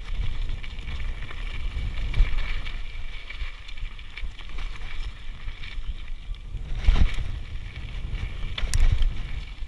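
Mountain bike riding down a dry, rutted dirt trail: wind over the camera microphone and tyre and frame rattle, with a sharp knock about seven seconds in and another shortly before the end as the bike jolts over bumps.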